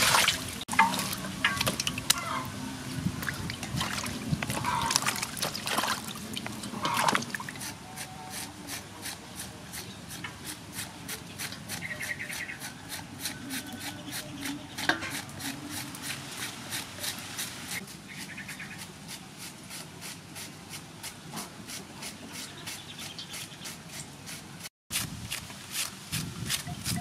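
Water pouring into an aluminium bowl for about the first second. Then a head of cabbage is shredded by hand, with short scraping strokes in a steady rhythm, a few a second.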